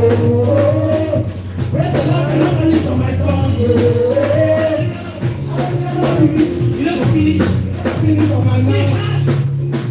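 Upbeat Nigerian makossa-style praise-and-worship music: a melody line glides over a steady bass pattern, with a rattling tambourine or shaker beat.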